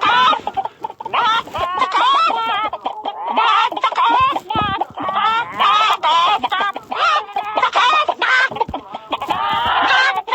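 Ringtone of chickens clucking, a dense, continuous run of short, wavering calls.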